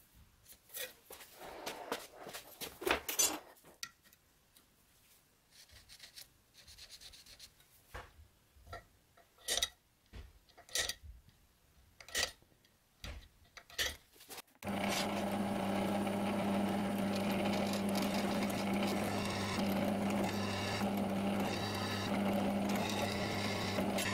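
A steel scribe scratching marking lines on a blued metal bar, then a series of sharp metallic taps as the hole centres are punched. About two-thirds of the way in, a drill press starts suddenly and runs steadily with a constant hum, its bit cutting into the metal.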